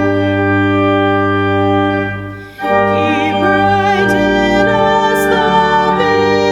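Organ music of held, sustained chords. The sound dies away briefly about two seconds in and comes back on a new chord, with some higher notes wavering.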